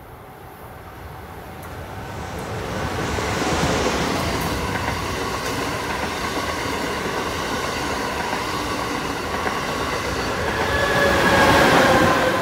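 Amtrak Acela Express high-speed electric trainset passing at speed: a rush of wheels on rail that builds as the train nears and holds steady while the coaches go by. It peaks near the end with a whine that drops in pitch as the rear power car passes.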